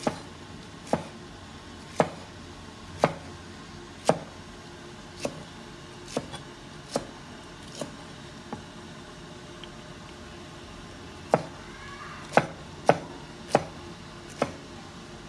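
Knife chopping pineapple on a round wooden chopping board: sharp knocks about once a second, a pause of a few seconds past the middle, then a quicker run of strokes.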